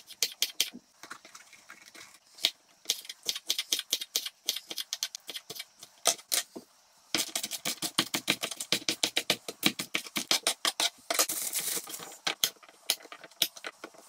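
Kitchen knife chopping vegetables (sugar snap peas and baby courgettes) on a wooden chopping board: sharp knocks of the blade on the board, scattered at first, then a fast run of chops about halfway through.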